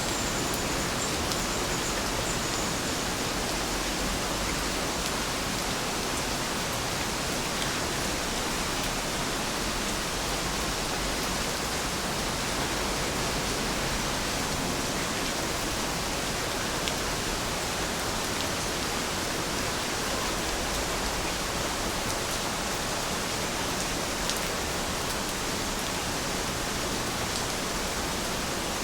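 Steady rain falling, an even hiss with now and then a single drop tick.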